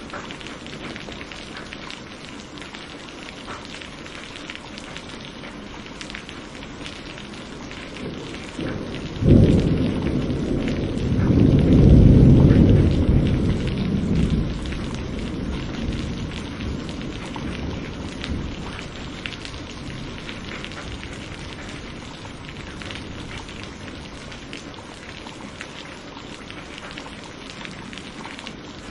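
Steady rain falling, with a clap of thunder about nine seconds in that breaks into a loud rolling rumble and fades away over several seconds.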